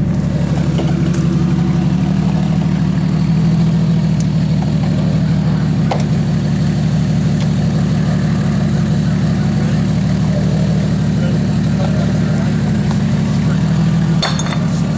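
Jeep Cherokee XJ's engine running at low revs as it crawls over rocks, steady, rising slightly in pitch about three seconds in.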